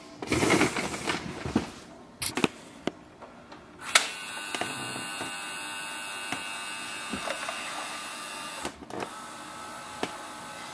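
Canon Pixma TR7620a's automatic document feeder and scanner working through a page. A few seconds of rustling mechanical noise and clicks end in a sharp click, then a steady motor whine runs with a short break about nine seconds in.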